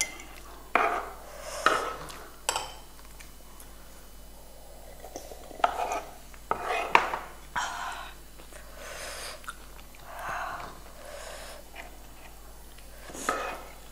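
Metal spoons scraping and tapping on a wooden board as two people eat, in short scattered clicks and scrapes.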